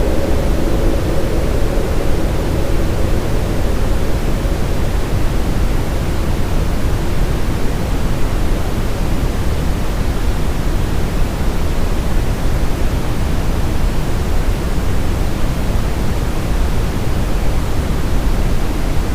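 Steady brown noise: an even, low, rumbling hiss with no changes or events.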